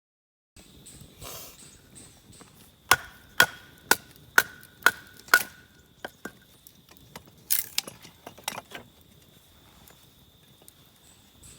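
Firewood being split with a blade: six evenly spaced sharp strikes about half a second apart, each with a short metallic ring, then a few quicker, irregular knocks.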